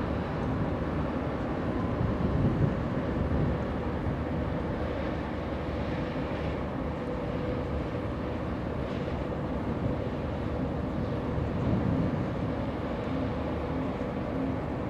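Steady low drone of a cargo ship's engine going by, with a faint steady hum. Wind buffets the microphone in a few gusts.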